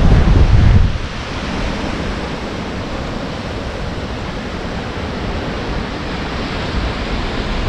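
Wind gusting, buffeting the microphone with a low rumble for about the first second, then settling into a steady rushing noise.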